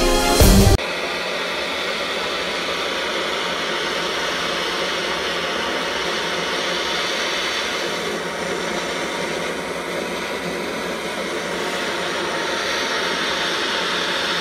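Background music cuts off under a second in, leaving a Campingaz gas blowtorch burning with a steady hiss, its flame playing on a steel kitchen knife blade held in it until the blade glows red hot.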